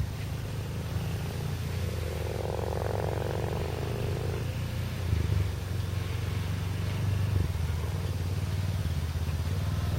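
Yamaha Rhino side-by-side utility vehicle's engine running at low, steady revs with a deep rumble. From about two seconds in, a higher whine rides over it for nearly three seconds, then stops.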